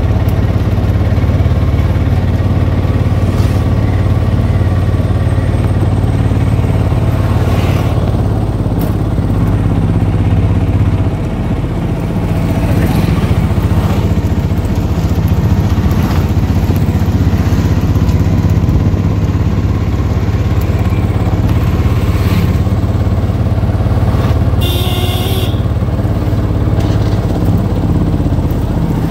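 Auto-rickshaw's small engine running steadily while under way, heard from inside the open cab, easing off briefly about a third of the way through and then pulling again. A short high-pitched sound cuts in near the end.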